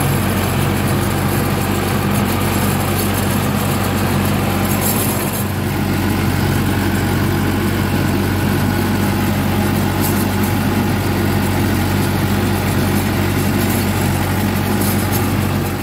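Swaraj 843 XM tractor's three-cylinder diesel engine running steadily under load, heard from the driver's seat, as the tractor pulls a rotavator through wet mud.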